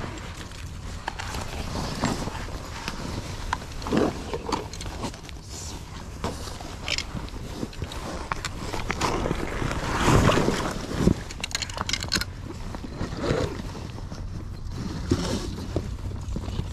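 Irregular rustling, scuffs and knocks of a person in waders and swim fins moving about and handling a float tube and landing net, with a louder clatter about ten seconds in.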